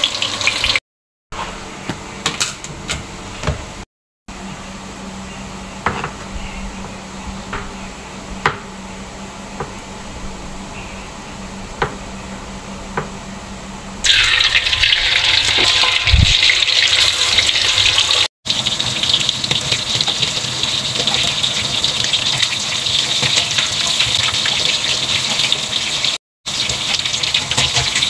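Hot oil sizzling in a wok around frying eggplant pieces. After a quieter stretch with a low steady hum and a few light knocks while tofu is handled on a plastic cutting board, loud steady sizzling of tofu frying in oil begins about halfway in, with a dull thump soon after.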